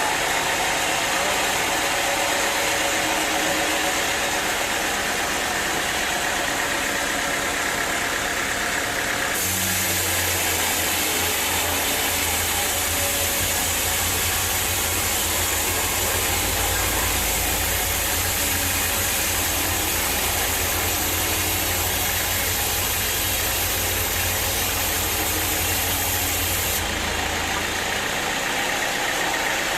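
Sawmill machinery running with a steady mechanical noise. About nine seconds in, a deeper engine hum comes in on top and carries on until it fades near the end.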